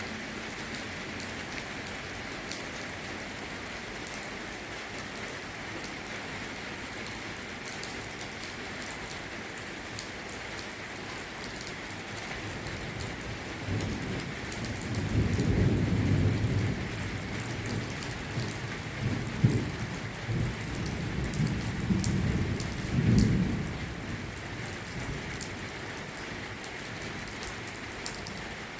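Steady rain falling in a thunderstorm, with a roll of thunder rumbling through the middle for about ten seconds, swelling several times before it fades.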